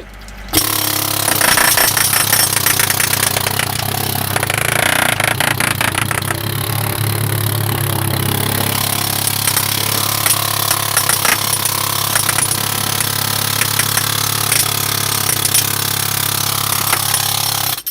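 Jackhammer hammering continuously against a sheet pile for surface preparation, a rapid run of blows over a steady low hum. It starts about half a second in and cuts off abruptly near the end.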